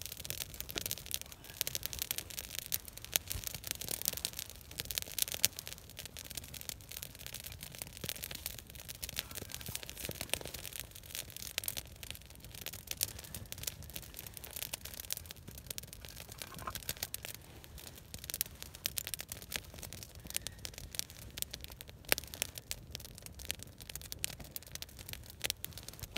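A roaring wood campfire burning, its flames crackling and popping in a dense, irregular stream of sharp snaps.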